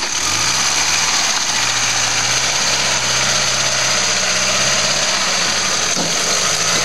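Engine of an open-top 4x4 trials vehicle revving up and then pulling steadily under load as it works through deep mud, with a brief knock near the end.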